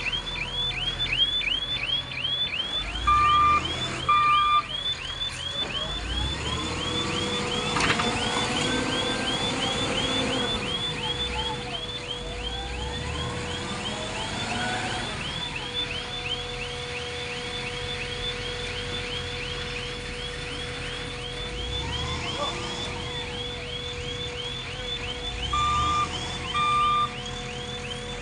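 Diesel engine of a JCB 3DX backhoe loader revving up and down as it works, under a continuous electronic warning alarm of rapid chirps, about three a second. A horn gives two short double beeps, a few seconds in and again near the end.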